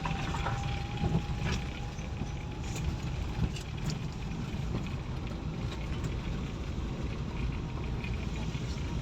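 Steady low rumble of a vehicle driving along a road, with a faint steady tone that fades out in the first second or two and a few light clicks.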